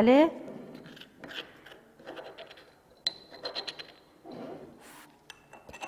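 Spatula scraping powdered naphthalene out of a porcelain mortar: scattered light scrapes and clicks, with a quick run of small ticks about three seconds in.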